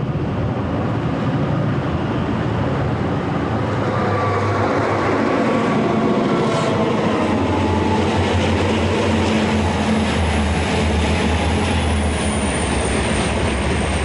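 Freight train passing close by: Burlington Northern diesel locomotives running past with a steady low engine drone, then loaded hopper cars rolling along the rails.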